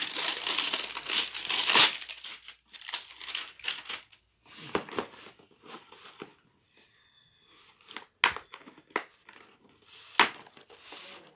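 Plastic packaging crinkling and rustling as it is handled, loud and continuous for the first two seconds, then in scattered crinkles with a few sharp clicks.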